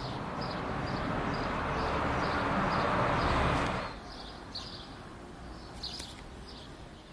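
A steady rushing hiss that grows louder and then cuts off abruptly about four seconds in, with a bird chirping repeatedly in the background, a few chirps a second.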